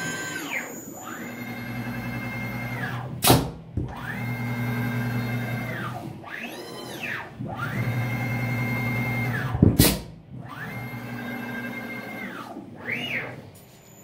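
CNC router carrying out an automatic tool change. The axis drive motors whine on each move, rising in pitch, holding steady and falling away, several times over. Two sharp hissing blasts from the ATC spindle's air-operated tool release come about three and ten seconds in, as one tool is released into the rack and the next is clamped.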